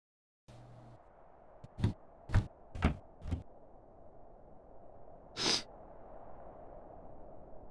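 Four knocks on a wooden door, about half a second apart, over a faint steady hum. A few seconds later comes a short breathy sound.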